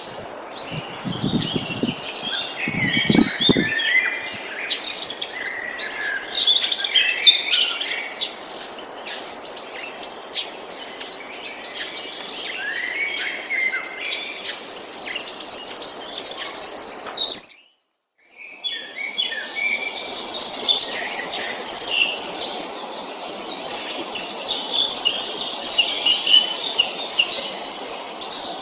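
Chorus of several songbirds singing and chirping over a steady outdoor hiss, with a few low bumps in the first few seconds. The sound cuts out completely for under a second a little past halfway, then the chorus resumes.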